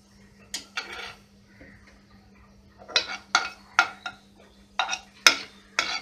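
Steel ladle stirring cumin seeds in oil in a nonstick kadhai, clinking and scraping against the pan. There are two strikes near the start, then a run of about seven in the second half.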